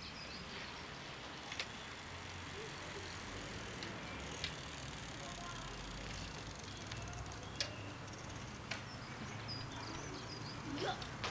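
Quiet outdoor ambience with a low, steady distant rumble, faint bird chirps, and four or five short sharp clicks spread a few seconds apart.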